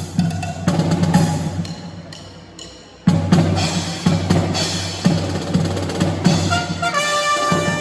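Marching band drums (snare and bass drum) playing a steady cadence. The sound fades away and then cuts back in abruptly about three seconds in. Near the end, held brass notes enter as the fanfare begins.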